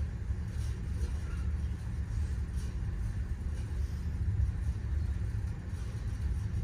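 Steady low rumble of a large hall's room tone, with no voices.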